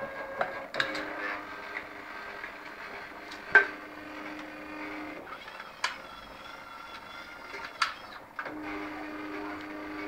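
Stepper motors of a home-built robotic arm whining steadily as they drive its joints. The pitch of the whine changes each time a move starts or stops. A few sharp clicks are heard, the loudest about three and a half seconds in.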